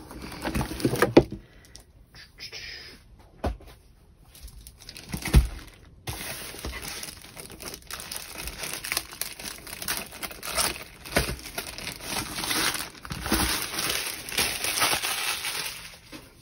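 Plastic wrapping crinkling and rustling as a rolled diamond-painting canvas is handled and unwrapped, with a few soft knocks of the roll against the box and table, the loudest about five seconds in.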